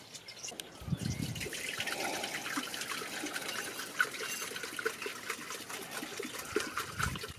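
Liquid poured in a thin steady stream from a plastic jerrycan into a metal cooking pot, trickling and splashing; it starts about a second in.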